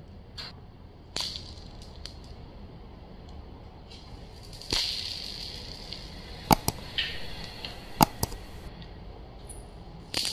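Glass marbles rolling on a hard polished floor and clicking against one another: scattered sharp clacks, the two loudest about a second and a half apart in the second half, with a short rolling rush about halfway through.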